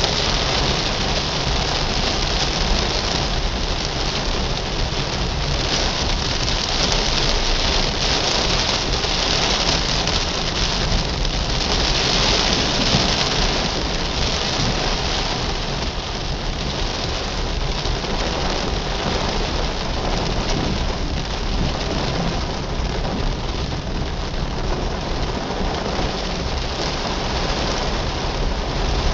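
Steady rain falling on a car's roof and windscreen, heard from inside the car, over a constant low rumble of the car driving on the wet road.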